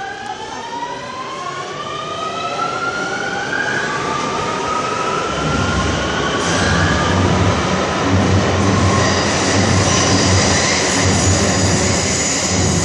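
Underground metro train pulling out of the station: its traction motors whine, rising in pitch in steps as it accelerates, then the rumble of the wheels on the rails grows louder through the second half.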